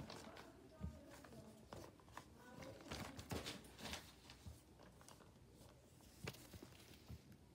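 Faint handling noise: scattered soft rustles and small knocks as a phone is moved about, with a few sharper clicks about a second in, around three to four seconds in and past six seconds.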